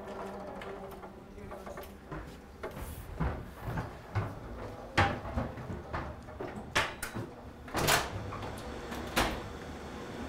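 Footsteps on a hard floor and the knocks and clunks of doors being opened, an irregular string of sharp clicks starting a couple of seconds in, over a low steady machine-room hum.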